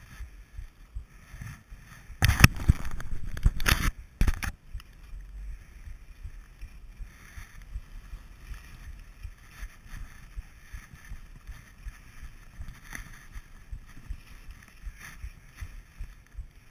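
Skis sliding and scraping over groomed snow, a steady rushing with small irregular peaks, and a much louder rushing stretch from about two to four and a half seconds in.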